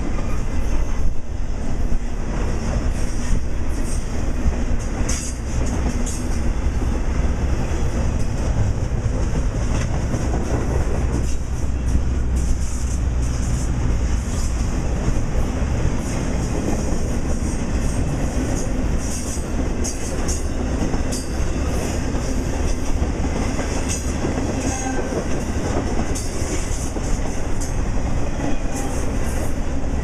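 Intermodal freight train's double-stack container cars and trailer flatcars rolling past close by: a steady rumble of steel wheels on rail with continual clicking and clatter from the wheels and couplings.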